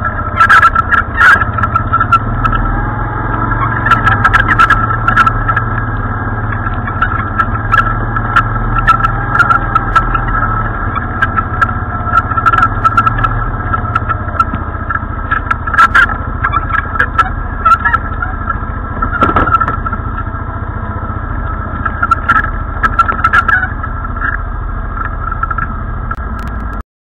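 ATV engine running steadily at low speed over a rough trail, with frequent short knocks and rattles from the bumpy ride.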